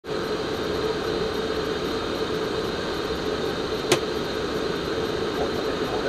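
Steady rushing cabin noise on the flight deck of an Airbus A320 in flight on approach: airflow and air-conditioning hum. One sharp click about four seconds in.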